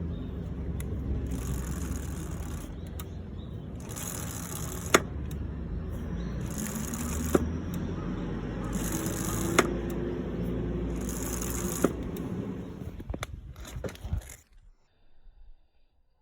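Honda CB125R rear-brake noise: a scrape and a sharp click that come back about every two and a half seconds over a steady low rumble, then stop about fourteen seconds in.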